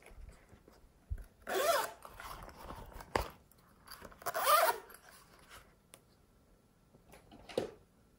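Zipper of a rainbow-shaped zippered pouch being pulled open in two long rasping strokes, with a sharp click between them and a shorter rasp near the end.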